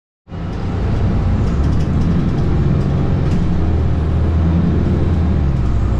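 Mercedes-Benz O530 Citaro bus's OM 906 hLA six-cylinder diesel engine running under way, heard from inside the passenger cabin as a steady low drone with slight shifts in pitch. It comes in just after the start.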